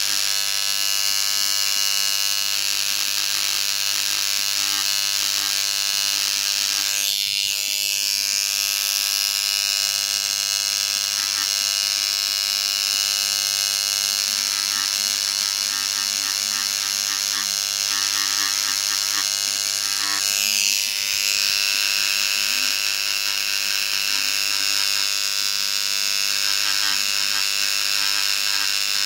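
Hand-held electric engraving pen buzzing steadily as its tip cuts and scratches a portrait into polished black granite. The buzz shifts briefly twice, about seven and twenty-one seconds in.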